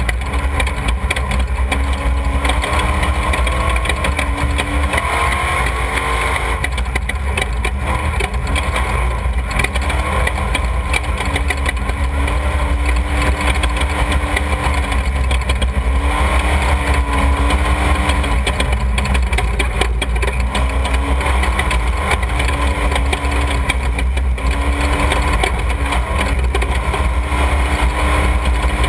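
Off-road desert race vehicle engines running at the start line, mostly idling, with a deep steady rumble and a pitch that wavers slightly.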